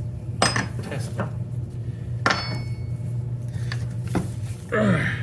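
Several sharp metallic clinks and knocks from metal tools or parts being handled and set down, one ringing briefly about two seconds in, over a steady low hum.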